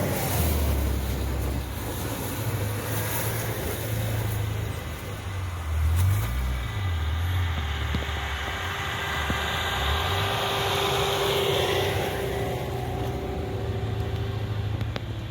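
A motor vehicle running: an uneven low engine and road rumble, with a faint steady whine through the middle stretch.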